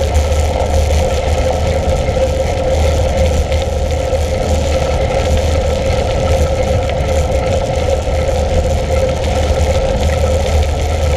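Mountain bike rolling steadily along a dirt and gravel track, with wind buffeting the camera microphone and a steady hum running under the tyre noise.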